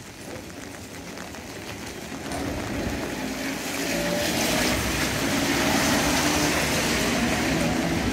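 A heritage tram running along wet street tracks, with the hiss of a car's tyres on the wet road. The sound grows louder from about two seconds in.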